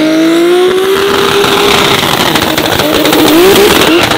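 A sports car's engine under hard acceleration, its pitch climbing steadily for about two seconds. Then come several short, quick rising revs through gear changes, with a rapid crackle from the exhaust.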